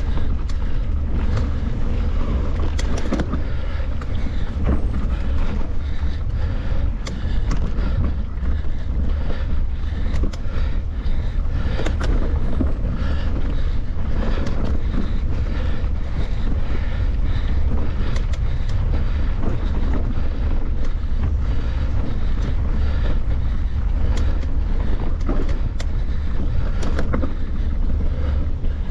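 Steady wind buffeting on the microphone of a camera carried on a moving mountain bike, with frequent small clicks and knocks from the bike and its tyres going over the trail.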